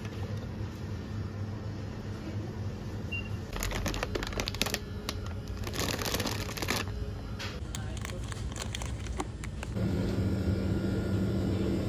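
Supermarket background hum with faint voices, and a plastic snack bag crinkling under a hand in a run of crackles from about four to seven seconds in.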